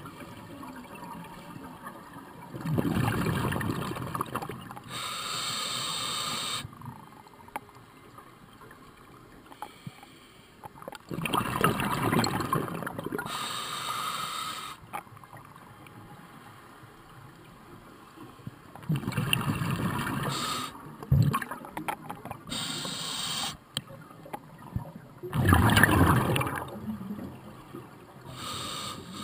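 Scuba diver breathing through a regulator, heard underwater: four bursts of exhaled bubbles gurgling, about every six to eight seconds, with a short hiss of inhaled air between them.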